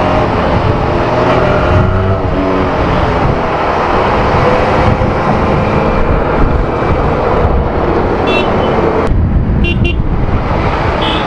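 Motorcycle engine running on the move, its pitch rising and falling with the throttle under a dense rush of road and wind noise. A few short horn beeps sound near the end.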